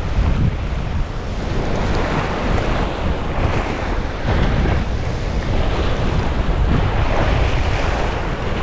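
Ocean swell surging and washing over a rock ledge, with wind buffeting the microphone in an uneven low rumble.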